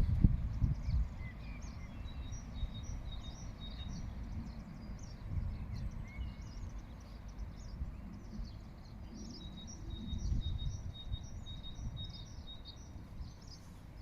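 Several small songbirds chirping and singing, one giving a rapid high trill twice. Under them runs a steady low rumble that is strongest at the start.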